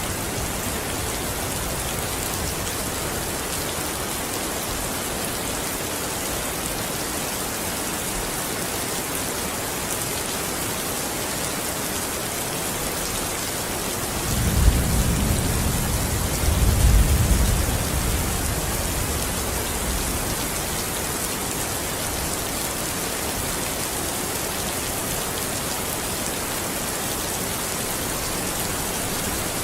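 Steady rain falling, an even hiss throughout. About halfway through, a low roll of thunder rumbles in two swells and fades away over a few seconds.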